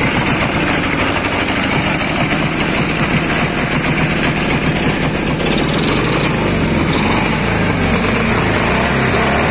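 Dnepr 10-36 motorcycle's two-cylinder boxer engine running, just started after new connecting-rod bearings and a new connecting rod were fitted to cure a knock from bearings worn through by oil starvation.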